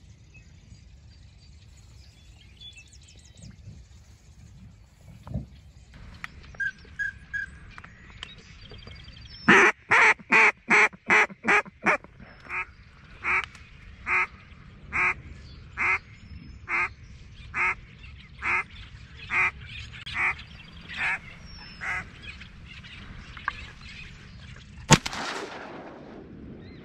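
Duck quacking: a fast run of about eight loud quacks, then a slower string of evenly spaced quacks, a little under one a second, for about ten seconds. Near the end comes a single sharp bang, a shotgun shot.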